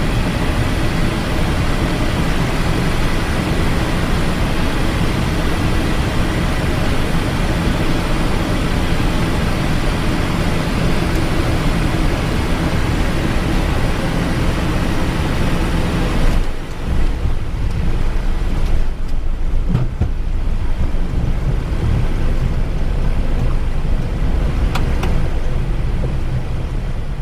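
Cockpit noise of a Cessna Citation XLS twin-turbofan business jet landing: a steady rush of airflow and engines with a faint thin whine. A little past halfway the high hiss drops away abruptly, leaving a low rumble with a few knocks as the jet rolls out on the runway after touchdown.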